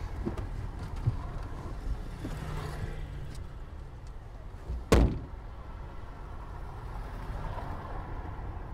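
Car passenger door opened with a few small knocks, then slammed shut once, hard, about five seconds in, over a low steady rumble.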